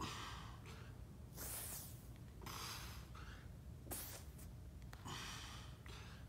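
A man breathing in and out faintly, with a breath about once a second, from the exertion of doing wide-grip push-ups.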